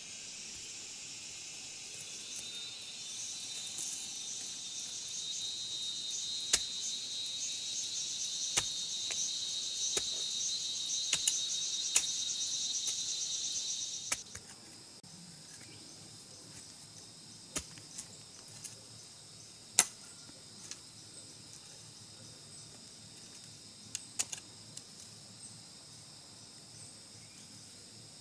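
Insects buzzing in a dense high chorus that swells over the first half and cuts off abruptly about halfway through, leaving a fainter hum. Scattered sharp knocks of a hand tool striking the ground punctuate it, a few in each half.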